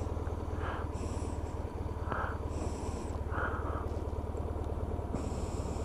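BMW R1100RS's air/oil-cooled flat-twin boxer engine running at a steady, even speed, with a few brief hisses over it.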